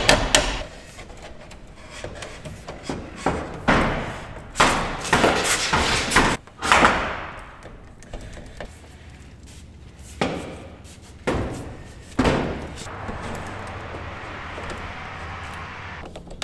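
Hand tools knocking against a steel breaker panel and its heavy 6-gauge wires as they are fitted: a string of sharp, unevenly spaced knocks with a little ringing, then a softer steady rustle near the end.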